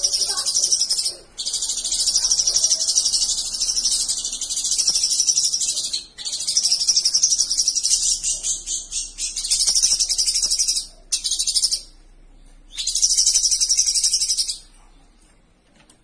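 Cucak cungkok (a leafbird) singing a rapid, high-pitched chattering song in long unbroken phrases, with a few short pauses. It fades out near the end.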